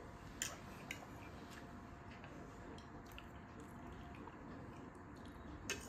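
Quiet eating sounds: soft chewing and mouth noises, with a few short, light clicks of forks touching ceramic plates.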